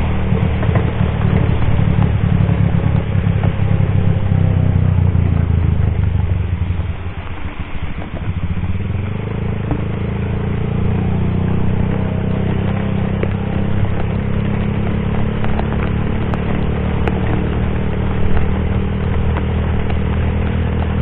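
Motorcycle engine running steadily while riding in heavy rain on a wet road, with the hiss of rain and road spray. About seven seconds in, the engine note drops briefly as the throttle eases, then settles back to a steady pull.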